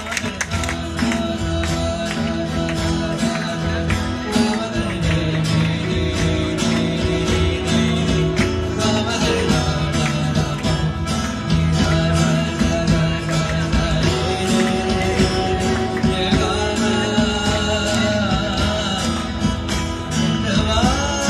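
Live band playing acoustic guitars, keyboard, side-blown flute and hand drums, with a singer.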